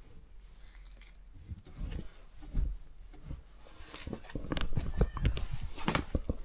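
Scattered light clicks and knocks of handling, becoming busier and louder from about four seconds in.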